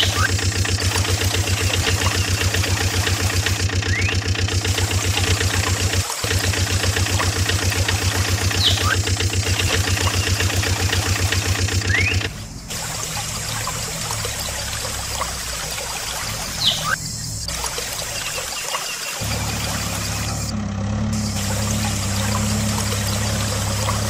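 Engine running with an even, rapid pulse, which gives way about halfway through to a quieter, rougher sound and then, near the end, to a different steady low engine hum. Water trickles and splashes underneath throughout, and there are a few short high chirps.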